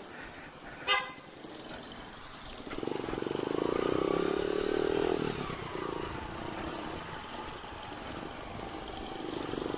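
A motorcycle engine passing by, swelling about three seconds in and fading after about five seconds, with a short horn toot about a second in.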